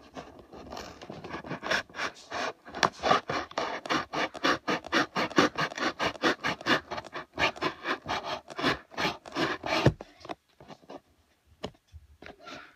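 Rapid scratching and rubbing, about six quick strokes a second for roughly ten seconds, then a few scattered clicks near the end.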